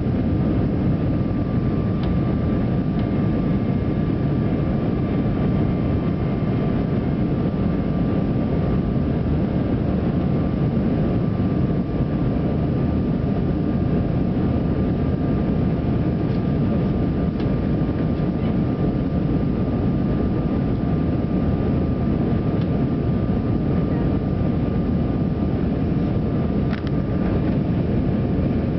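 Cabin noise inside an Airbus A320 climbing after take-off: the steady low drone of the jet engines and rushing air, with a thin steady whine held above it.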